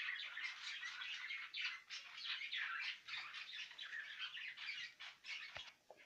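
A flock of small cage birds chattering and chirping all at once, many short high calls overlapping, thinning out near the end.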